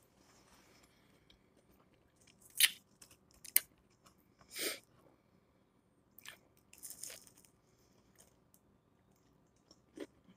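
Close-up mouth sounds of someone eating crispy breaded air-fried chicken strips: a handful of sharp crunches as the coating is bitten and chewed, the loudest about two and a half seconds in, with softer chewing between them.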